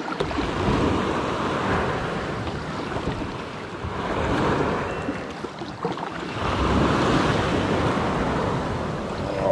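Sea waves washing in, swelling and fading three times.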